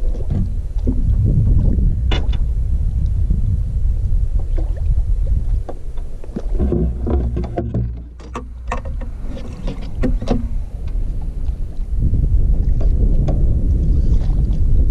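Gusty wind buffeting the microphone: a heavy low rumble that eases for a few seconds around the middle, where scattered knocks and clatter come through.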